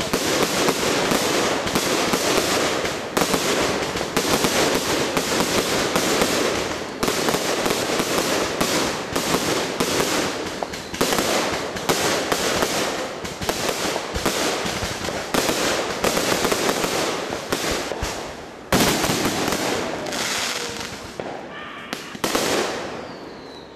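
1.3G Electrical Storm firework cake firing a rapid, continuous barrage of shots and bursting shells with crackle. A sudden louder bang comes about 19 seconds in, and the barrage thins out in the last few seconds.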